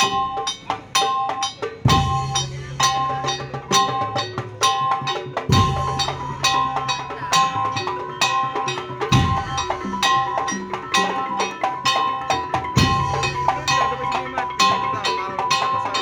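Madurese daul (tong-tong) percussion ensemble playing: a fast, dense rhythm of wooden slit-drum strikes and two repeating bright pitched notes. A deep drum hit every three and a half seconds or so sinks in pitch as it dies away.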